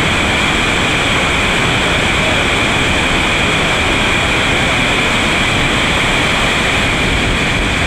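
Steady, loud rushing of a big whitewater rapid in high water.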